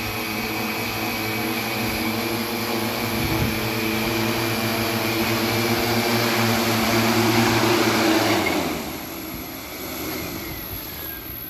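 Large four-rotor mapping drone's motors and propellers running with a steady multi-tone whine as it hovers and comes down to land, growing louder as it nears the ground. About eight and a half seconds in the throttle drops at touchdown, and near the end the rotors spin down with a falling whine.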